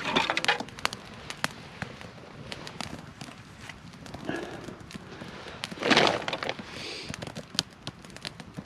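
Small fire of pine needles, birch bark and damp twigs crackling and popping as it catches, with sharp pops scattered irregularly through. Two louder brief noisy bursts stand out, one at the start and one about six seconds in.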